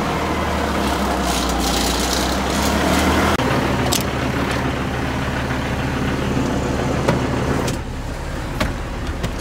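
Semi truck's diesel engine idling steadily, with a few knocks and bumps as someone climbs up into the cab. About eight seconds in, the sound turns duller and quieter, heard from inside the cab.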